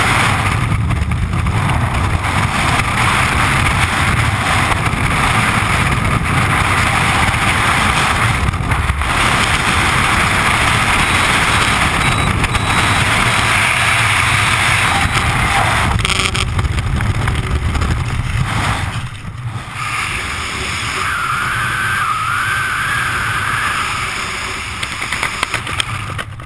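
Freefall wind rushing over a body-worn camera's microphone, loud and steady; it eases off over the last couple of seconds as the parachute opens.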